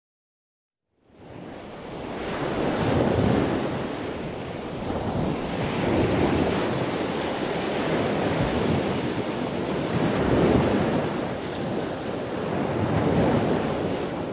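Ocean surf: waves washing in, swelling and easing every three or four seconds, starting about a second in.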